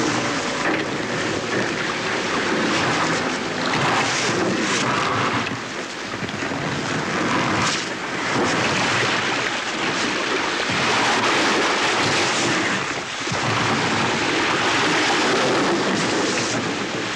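Steel ship's bow pushing through broken sea ice: a loud, continuous rushing and grinding of ice floes and water against the hull, with scattered sharp cracks.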